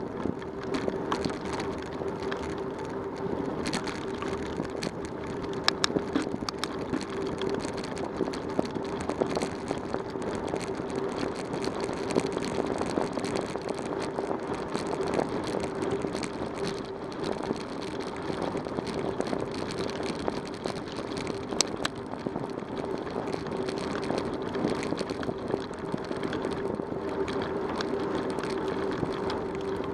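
Bicycle rolling along a rough paved road: steady tyre noise with constant rattling from the bike and its camera mount, over a steady hum, with a couple of sharper clicks.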